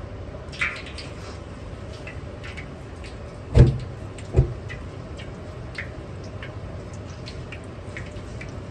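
Battered chicken deep-frying in a large wok of oil, with scattered crackles over a steady low kitchen roar. Two heavy thumps come about three and a half and four and a half seconds in, the loudest sounds.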